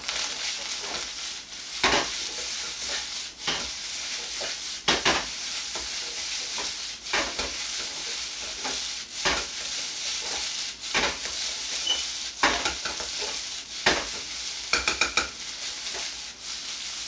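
Fried rice sizzling in a wok while a metal ladle stirs and tosses it. The ladle knocks and scrapes against the pan every second or two, with a quick run of clicks about fifteen seconds in.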